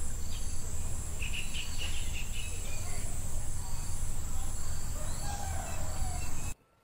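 Outdoor riverside ambience: a steady high buzz of insects with scattered short bird chirps over a low rumble. It cuts off suddenly near the end.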